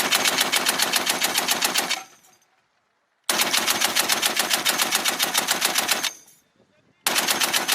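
M2A1 .50-calibre heavy machine gun firing three long bursts of about nine to ten shots a second: the first two last about two to three seconds each with a short pause between, and the third starts near the end.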